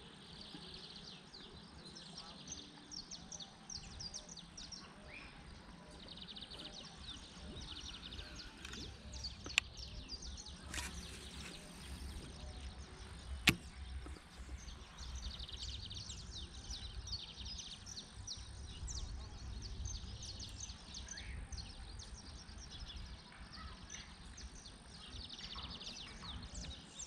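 Outdoor pond-bank ambience: birds chirping in repeated bursts over a low wind rumble on the microphone, with two sharp clicks, one about ten seconds in and one about three and a half seconds later.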